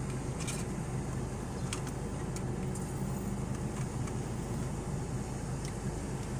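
Steady low hum of an idling vehicle engine, with a few faint clicks.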